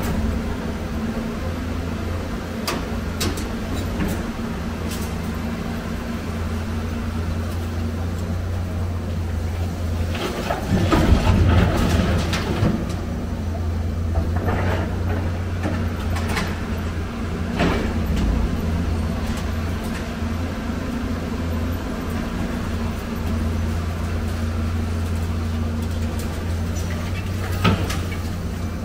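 Excavator's diesel engine running steadily, with scattered clanks and bangs of scrap metal being handled; a burst of loud clatter comes near the middle.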